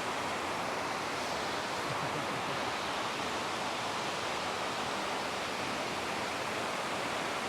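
Steady rush of a waterfall: falling water making an even, unchanging hiss.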